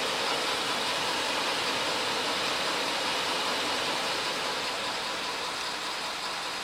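Steady rushing hiss inside the cab of a running 2017 Ford F250, easing slightly near the end.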